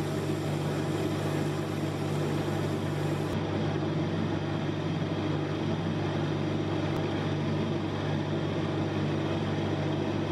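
Wood lathe running steadily with its workpiece spinning: an even, low motor hum.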